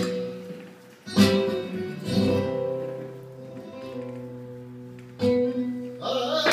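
Flamenco guitar playing a seguiriya (seguirilla): a few strummed chords, each left to ring out and die away.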